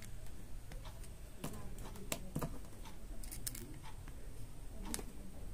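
Scattered small sharp clicks and taps of metal parts being handled as new carbon brushes are fitted into a motorcycle starter motor's brush holder, over a low steady hum.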